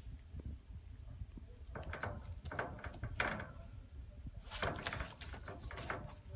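Shiba Inu puppy pawing and scratching at the wire bars of its crate: scattered rattles and scrapes, a puppy eager to get out.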